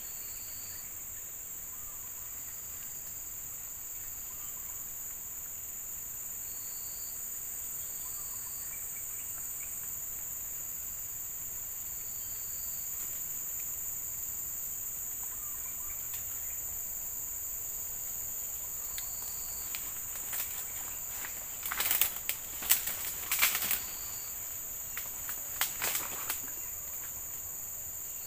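Steady high-pitched chorus of forest insects, with short separate chirps coming and going. From about twenty seconds in, a cluster of sharp rustles and knocks rises above it.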